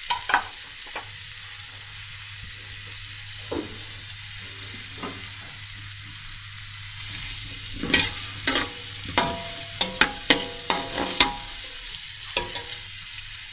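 Chopped onions sizzling steadily in hot oil in a steel karahi. From about seven seconds in the sizzle grows louder and a metal slotted spatula stirs them, scraping and clinking against the pan several times.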